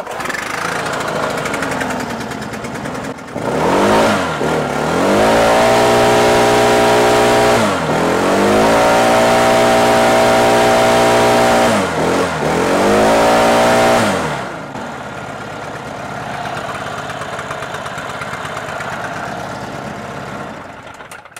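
Stihl BR800 backpack blower's two-stroke engine running on a test fire of its freshly fitted replacement short block: idling, revved up three times and held at high speed with the blower fan rushing, then back to idle and shut off near the end. It sounds okay.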